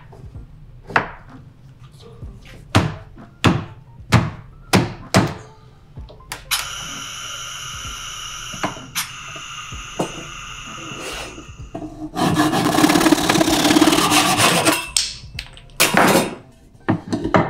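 Plywood pneumatic vise worked by hand: a quick run of wooden knocks and clicks, then a steady whistling hiss of compressed air. About twelve seconds in comes a louder rush of air lasting about two and a half seconds, as the air valve is thrown and the air cylinder moves the jaw. A few more wooden knocks follow.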